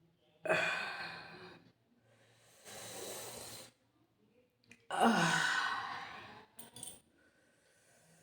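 A person yawning aloud: a voiced yawn that starts sharply and trails off, a long breath, then a second voiced yawn falling in pitch, followed by a few small mouth clicks.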